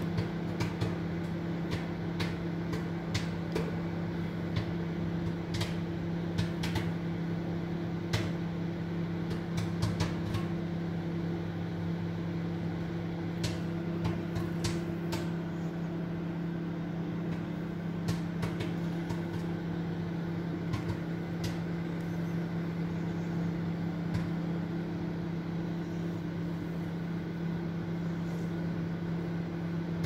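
Microwave oven running with a steady hum while microwave popcorn pops inside. Sharp pops come quickly at first and thin out to a few scattered pops in the second half, as the popping slows toward done.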